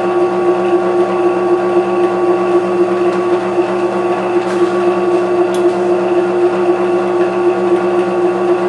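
WEN 4214 12-inch variable-speed drill press running with no load: a steady motor hum with a clear constant tone.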